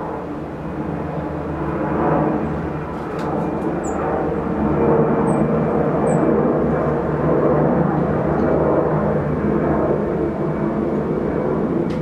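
A steady low engine-like drone with several held tones, growing louder about two seconds in and again around five seconds. A few short, high bird chirps come through faintly in the middle.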